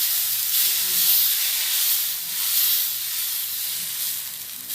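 Adai batter sizzling on a hot dosa griddle: a loud, steady hiss that starts sharply just before and holds throughout, the sign of a well-heated griddle.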